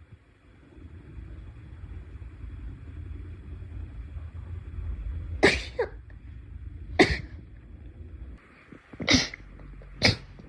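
A run of four sharp sneezes, the first about halfway in and the rest a second or two apart, the first two the loudest. A low rumbling noise builds before the first.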